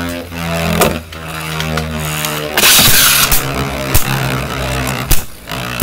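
Two Beyblade Burst spinning tops whirring in a plastic stadium, a steady hum broken by sharp clacks as they collide. The heaviest, longest clash comes about three seconds in.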